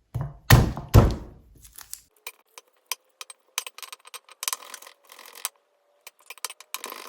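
Knife chopping garlic on a cutting board: about three heavy knocks in the first second or so, then a scatter of light clicks and taps.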